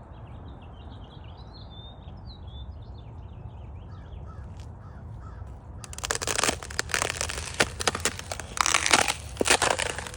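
Thin spring ice crackling and crunching under footsteps, starting about six seconds in, each step a loud irregular crunch. Before it, birds calling faintly over a low steady background.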